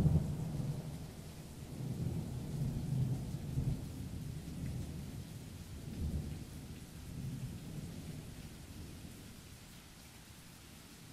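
Thunderstorm: low rolling thunder rumbling in waves over a steady hiss of rain, the whole dying away toward the end.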